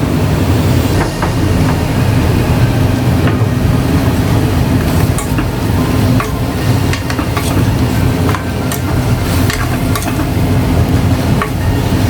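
Chicken sizzling in a hot pan while a spatula stirs it, scraping and clicking against the metal now and then, over a steady low hum.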